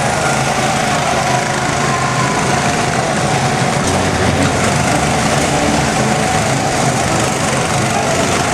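Several small go-kart engines running together in a steady drone as a line of karts drives past on the track.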